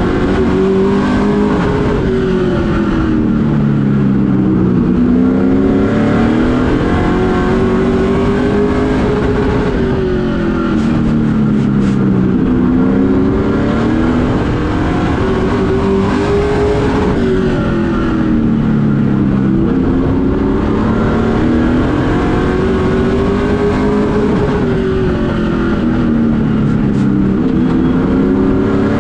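Race truck's engine heard from inside the cockpit at racing speed, its pitch climbing as it accelerates and dropping as the driver lifts, in a repeating cycle about every seven to eight seconds around the short oval.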